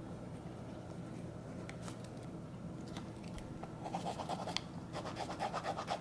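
Pen scratching on a paper notepad: faint strokes of writing, then near the end a quick run of back-and-forth scribbling strokes crossing out a line.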